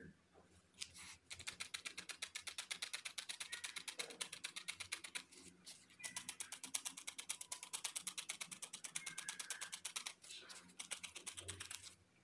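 Felting needle stabbing rapidly into wool and the foam pad beneath, a fast even run of crisp pokes several a second. The pokes come in two long runs with a brief pause about five seconds in, then a shorter run near the end.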